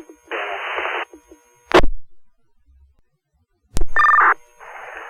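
Two-way fire radio traffic: a short burst of static as a weak, unreadable transmission breaks up, then a squelch click, a pause, another click and a brief two-pitch beep as the next radio keys up, followed by open-channel hiss. The static comes from a handheld radio that the dispatcher reads at strength 1.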